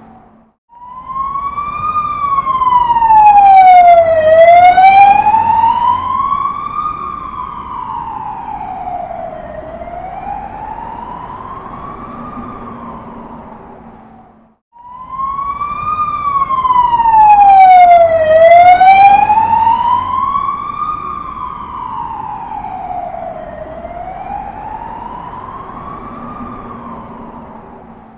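Police car siren on a slow wail, its pitch sweeping up and down about every five seconds as it passes by. It swells to its loudest about four seconds in and fades away over about ten seconds. The same pass-by then plays again, over a low street rumble.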